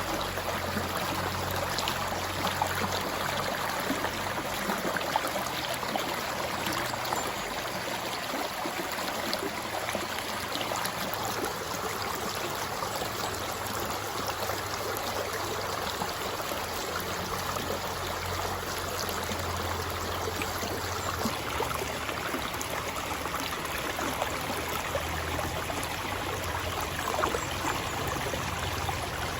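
River water flowing: a steady rushing over rocks with many small splashes and trickles.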